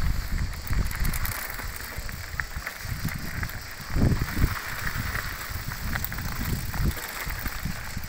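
Mountain bikes rolling along a gravel track: tyres crunching over loose stones, with wind buffeting the microphone in an unsteady rumble.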